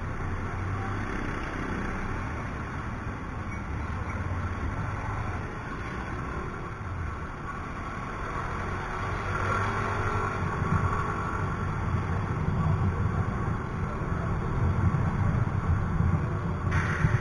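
Yamaha Mio i 125 scooter's small single-cylinder engine running with road and wind noise while riding through traffic, mixed with the noise of the surrounding traffic. It grows louder past the halfway point as the scooter picks up speed on the open road.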